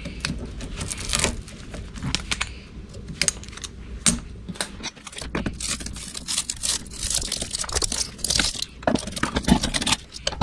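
Hand tools prying and scraping against a steel electric motor stator held in a bench vise while its copper windings are pulled out: a busy run of irregular metal clicks, knocks and scrapes.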